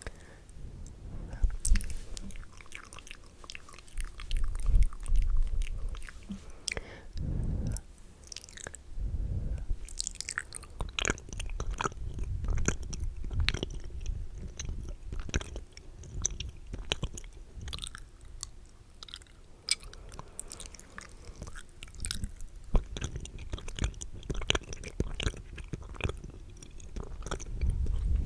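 Wet, spitty mouth sounds close on the microphone: a dense, irregular stream of small sharp clicks and smacks, with low bursts of rumble between them.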